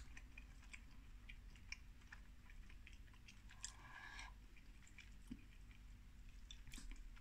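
Faint, scattered mouth clicks and smacks of a man chewing a bite of a microwaved processed-beef burger patty.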